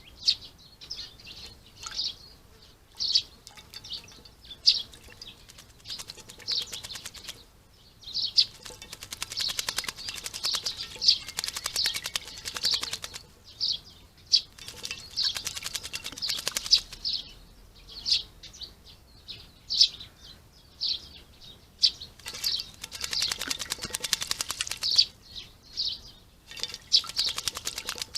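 Small garden birds chirping again and again in short, high notes, with several stretches of fast rattling.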